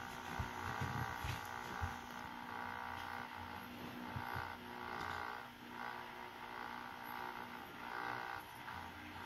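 A boat's engine running steadily, with a humming drone that swells and eases every second or so, and irregular low thumps over it.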